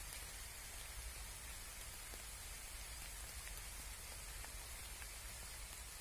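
Steady light rain: an even hiss with a few faint, scattered drop ticks.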